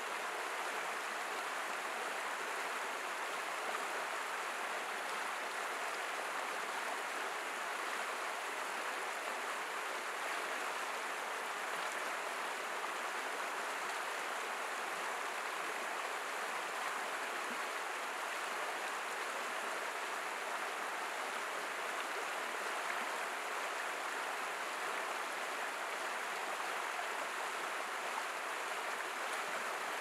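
Shallow rocky stream running over stones: a steady, even rush of water.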